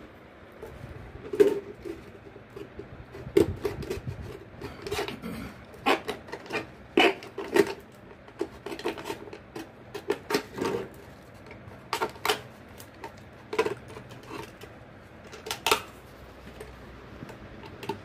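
A knife cutting a thin 1-litre plastic soft-drink bottle, with irregular clicks and crackles from the plastic as it is cut and handled.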